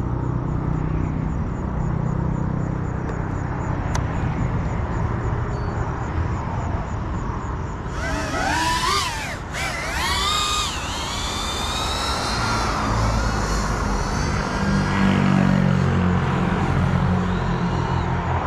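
FPV quadcopter (GEPRC CineLog35 cinewhoop) motors and propellers whining, the pitch swooping up and down as the throttle changes, strongest from about eight seconds in. Under it, a steady low rumble.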